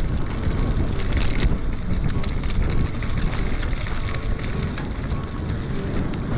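Mountain bike ridden fast along a gravel forest track, heard from a camera mounted on the handlebars: tyres crunching and rumbling over the gravel, with many quick rattles as the bike runs over bumps.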